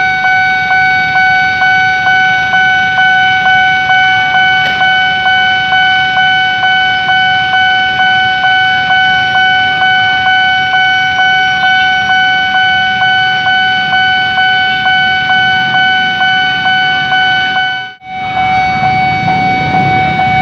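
Level-crossing warning bell ringing loudly and without a break, about two and a half strokes a second. Near the end, a low rumble rises under the bell as a KRL commuter train approaches the crossing.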